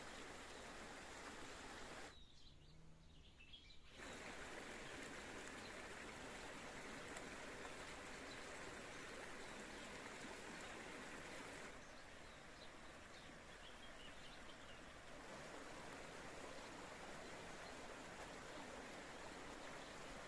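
Steady faint rush of flowing spring water, with a few faint bird chirps. The rush drops away briefly about two seconds in and again around twelve seconds in.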